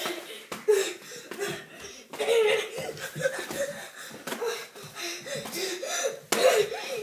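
A man laughing, broken by a few sharp thuds of boxing-glove punches.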